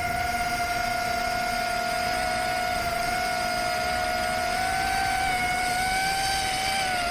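Rekon 5 FPV quadcopter's brushless motors and propellers whining steadily in flight, over a rush of air. The pitch creeps up a little about five seconds in and drops slightly near the end.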